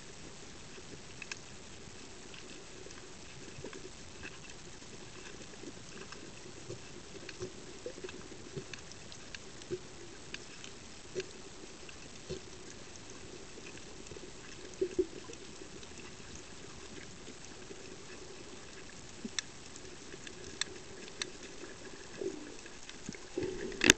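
Underwater sound on a shallow coral reef: a steady hiss with scattered, irregular clicks and crackles. A couple of louder knocks come midway and again near the end.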